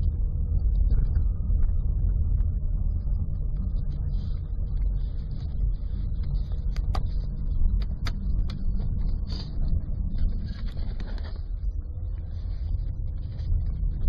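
Car engine running, heard low and steady from the driver's footwell as the gas pedal is worked, with a few sharp clicks around the middle.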